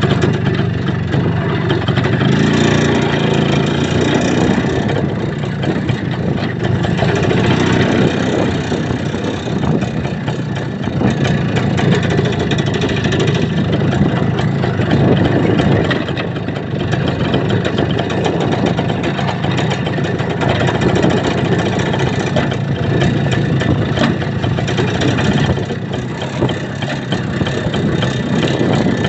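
A vehicle's engine running steadily while driving, its pitch shifting briefly a couple of seconds in, under dense rumbling noise from the ride.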